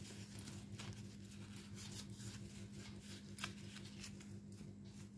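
Faint rustling and crackling of a papery corn husk as fingers roll it into a tight bud, with small scattered clicks and a steady low hum underneath.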